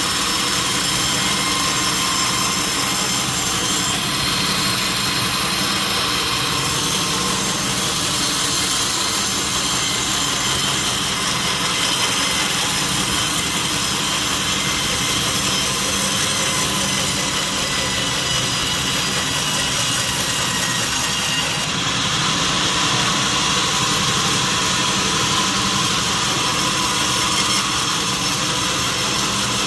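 Sawmill saw cutting lengthwise through a large teak log, a loud, steady whine and rasp of blade in wood.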